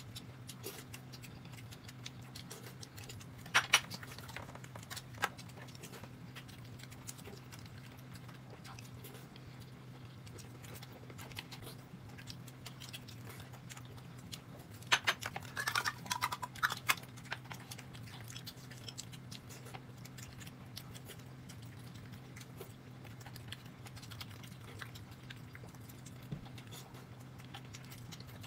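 Quiet eating at a table: chewing with scattered small clicks and clinks of chopsticks and bowls, and a busier cluster of clatter about 15 seconds in, over a steady low hum.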